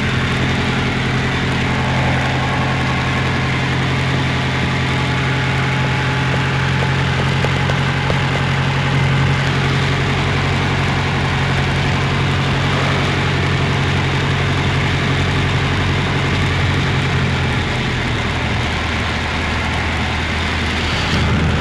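Piper Cherokee's piston engine and propeller running steadily at low power while the aircraft moves on the ground, heard muffled from inside the pilot's headset ear cup. A constant low drone whose pitch shifts slightly about three-quarters of the way through.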